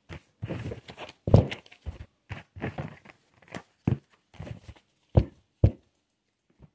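Handling noise close to the microphone: a string of irregular taps, knocks and rustles, with two sharper knocks about five seconds in.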